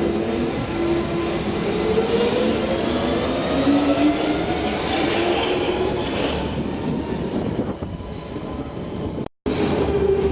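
London Underground train running on the rails, its traction motors whining in tones that rise in pitch as it gathers speed, with wheel-on-rail rumble. The noise eases off, then cuts out briefly near the end before the train rumble and a steady hum return.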